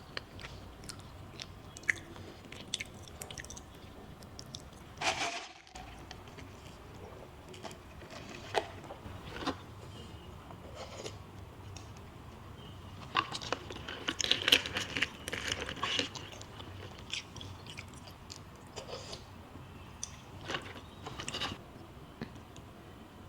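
Close-miked eating sounds: chewing and biting with scattered sharp mouth clicks, a brief louder burst about five seconds in, and a busier stretch of chewing about two-thirds of the way through.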